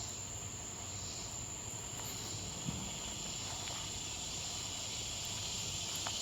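Summer chorus of annual cicadas, Robinson's cicadas and swamp cicadas, a steady high-pitched buzz that does not let up.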